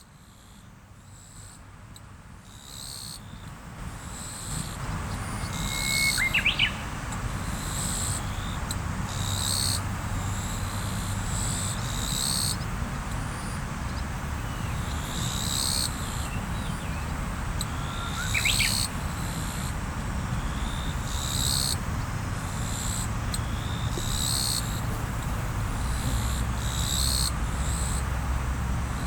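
River water flowing steadily, fading in over the first few seconds. Short high bird calls repeat throughout, and two quick rising chirps come about six seconds in and again near the middle.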